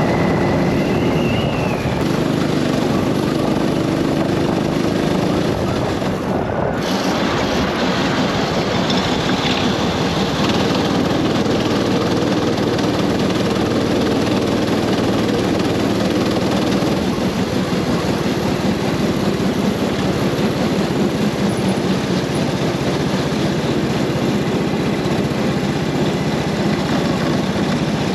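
Go-kart engine running on track, its pitch rising and falling with the throttle, under heavy wind noise on an onboard microphone.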